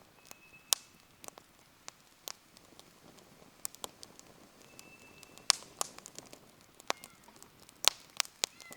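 Wood fire crackling, with irregular sharp pops and snaps: a strong one about a second in, and several close together from halfway through to near the end.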